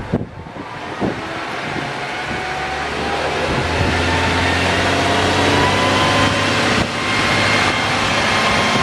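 KiHa 40 diesel railcar under power, its engine drone growing louder over the first few seconds as it approaches, then holding steady with a faint whine above it.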